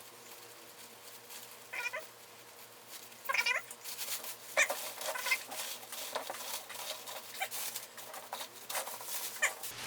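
Plastic packaging wrap crinkling and rustling as it is handled, with a cat meowing a few times in short, rising calls.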